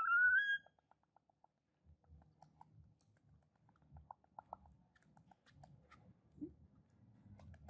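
Baby macaque giving one short, high-pitched squeal that rises in pitch. It is followed by faint, scattered soft clicks and smacking sounds.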